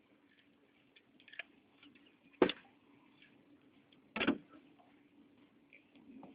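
Two sharp clicks or knocks about a second and a half apart, over a faint steady low hum and a few softer ticks.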